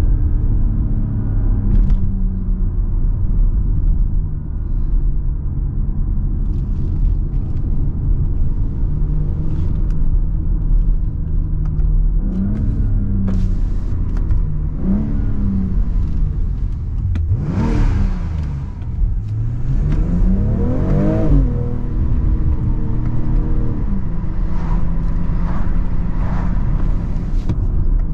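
BMW X3 M40i's turbocharged 3.0-litre inline-six engine running under way. It holds a steady drone, and its revs climb and drop several times, most sharply in the middle and again near the end.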